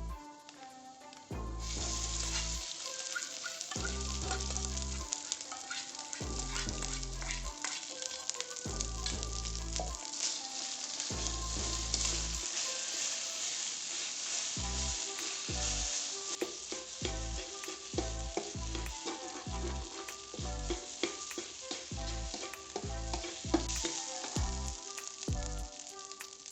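Egg fried rice sizzling in a hot pan as it is stirred, the sizzle starting about a second and a half in and going on steadily. A backing track with a regular bass beat plays underneath.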